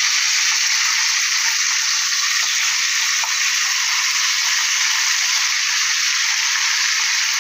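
Singhara catfish pieces shallow-frying in hot oil in a pan, giving a steady, loud sizzle as they are turned over to their browned side.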